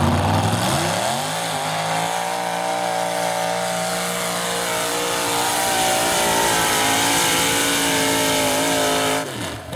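Lifted mud-bog pickup truck's engine revving up over the first second and a half, then held at high revs through the mud pit, creeping slightly higher. It drops away sharply near the end.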